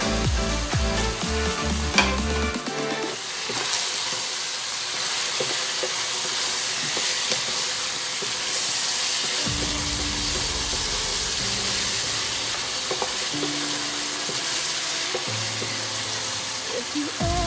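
Beef, carrots and potatoes sizzling in a nonstick pot while a wooden spatula stirs and scrapes them, with occasional small knocks, over background music.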